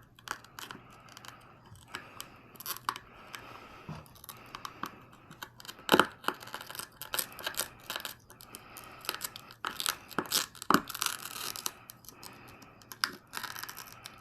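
Irregular small clicks, cracks and scraping as the cracked lens cover and its plastic housing on an Insta360 camera are picked and broken apart, with two louder sharp cracks, one about halfway through and one about three-quarters of the way in.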